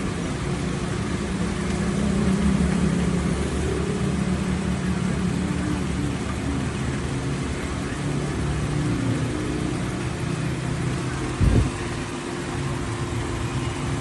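Old car's petrol engine idling with its air filter housing removed, the engine sound swelling a little about two to four seconds in. A short low thump about eleven and a half seconds in.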